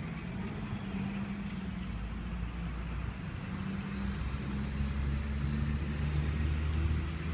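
Street traffic: a nearby vehicle engine running with a low, steady hum that grows a little louder about four seconds in.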